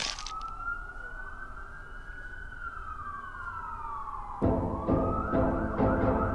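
A single siren-like gliding tone rises, holds, then sinks over about four seconds as part of a title-sequence intro. Then a pulsing music track comes in with about two beats a second.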